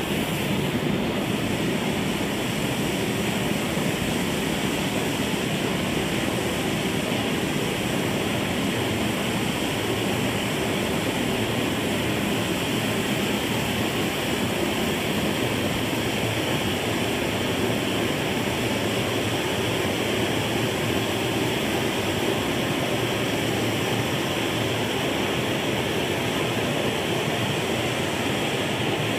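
Clayton & Lambert Model 238 gasoline blowtorch burning with a steady, even rush of flame that holds the same level throughout. The burner is still warming up, and the flame burns yellow rather than blue.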